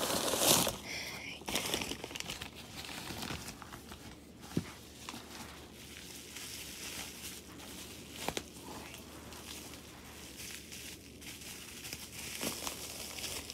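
Bubble wrap and plastic packing crinkling and rustling as a parcel is unpacked by hand. It is loudest in the first two seconds, with a couple of sharp clicks later on.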